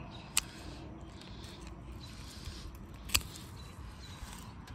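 Hand pruners snipping through rose canes: two short, sharp cuts about three seconds apart.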